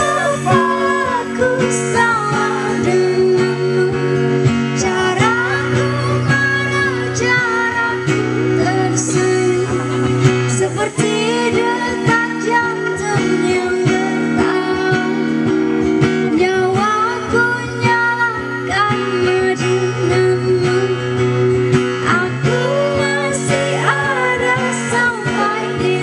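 A woman singing a song into a microphone, accompanied by a strummed acoustic guitar.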